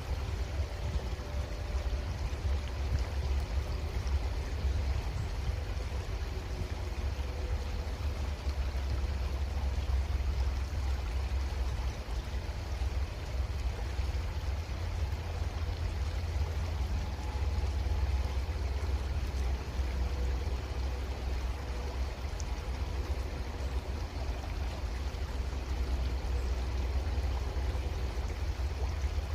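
Creek water running steadily, with a constant deep low rumble underneath.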